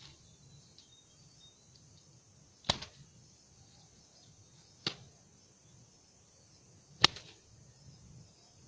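Three sharp knocks about two seconds apart, over a faint steady high hiss.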